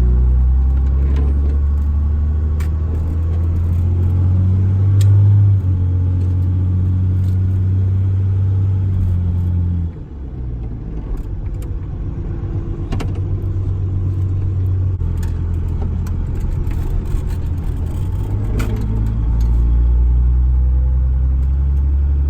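12-valve Cummins 5.9 L inline-six diesel with a 5-inch straight-pipe exhaust, pulling steadily under load while driving, with light rattles and clicks over it. The engine note drops suddenly about ten seconds in as the throttle comes off, then builds back up and runs loud again near the end.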